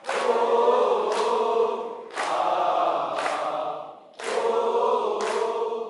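Snake boat crew chanting a rowing song together in loud repeating phrases, one about every two seconds, with a sharp beat at the start of each phrase and another about a second later, keeping time for the paddle strokes.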